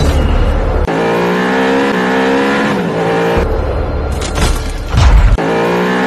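Sports-car sound effects: an engine at high revs and tyres squealing, mixed over background music, with a loud burst about five seconds in.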